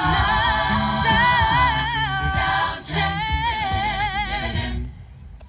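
A cappella vocal group singing without instruments: a high voice holds wavering, vibrato notes over lower sung parts. The singing cuts off about five seconds in, ending the song.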